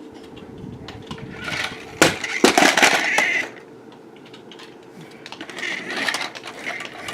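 A small remote-control toy car driving into light objects and knocking them over: a sharp knock about two seconds in, then rattling clatter, and more clatter near the end, over a faint steady hum.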